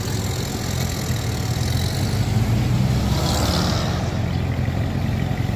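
Old military jeep driving slowly past, its engine a steady low hum that swells about midway as it goes by.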